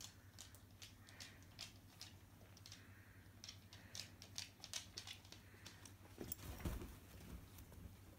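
Light, irregular taps and scuffles of cats' paws and claws on a hardwood floor as they play and pounce at a string toy, with a louder bump about six and a half seconds in.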